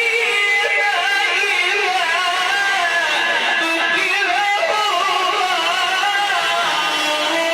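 Music with a continuous, wavering, ornamented melody line.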